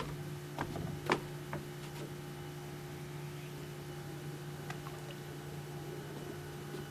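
A steady low hum with a few light clicks, the sharpest about a second in.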